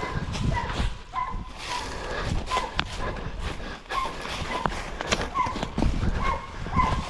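Hunting dogs barking in the distance: a steady run of short barks, a little under two a second, over a low rumble of noise.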